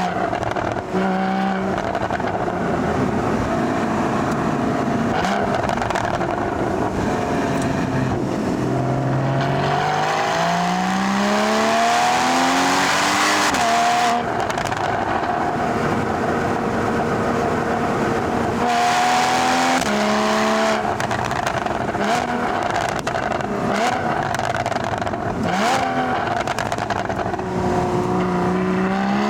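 Porsche Boxster GTS's 3.4-litre flat-six engine and exhaust under hard driving: the revs climb, drop sharply at gear changes or lifts, and climb again many times over.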